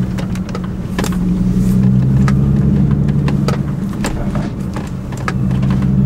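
Audi S4's supercharged V6 running at low revs, a steady drone heard from inside the cabin, with scattered light clicks and ticks. The driver puts these down to the sticky new tyres picking up small stones and throwing them into the wheel wells.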